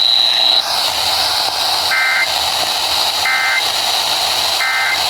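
Three short bursts of EAS SAME data tones, the warbling two-pitch digital end-of-message signal, each about a third of a second and spaced about 1.3 seconds apart. They mark the end of the alert broadcast. Steady FM radio hiss with a faint high whine runs underneath.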